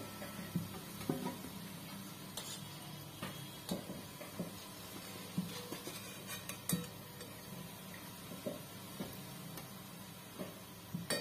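A steel slotted spoon knocking and scraping against an aluminium kadhai and a steel plate while fried pastries are lifted out of hot oil: a scattered run of light clinks over a steady low hum.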